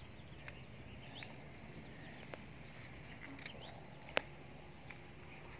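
Quiet outdoor background with scattered small clicks and rustles from hands working soil and leaves in a hole, and one sharp click about four seconds in. Faint high chirps sound now and then.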